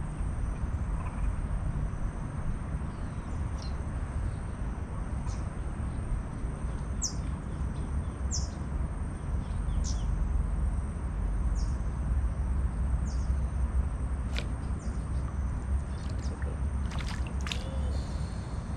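Open-air ambience: a steady low rumble, with a bird repeating short, high, falling chirps every second or two, and a brief burst of high calls near the end.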